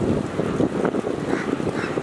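Passenger train rolling across a railway bridge, a steady rumble and clatter of wheels on the span. Wind buffets the microphone.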